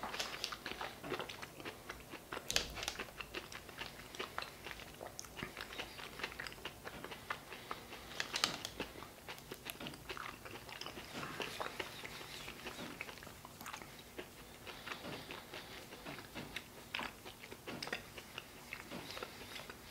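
A person chewing a mouthful of chicken pot pie in a pastry crust, with faint, irregular small crunches and mouth sounds.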